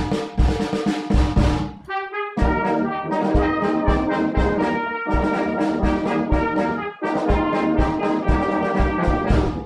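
Brass band music, held brass notes over a steady, regular drum beat.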